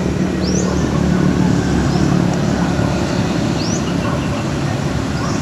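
Steady background rumble of outdoor road traffic, with a few short, high rising chirps heard above it.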